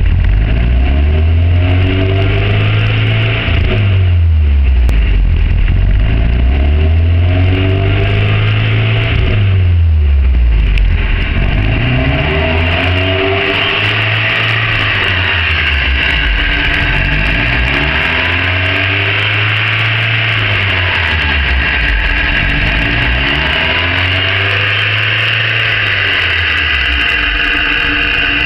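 A Tigra's four-cylinder petrol engine idling with its revs swinging up and down on their own in a steady cycle, about once every three seconds: a hunting, surging idle. From about ten seconds in a steady hiss sounds more strongly alongside it.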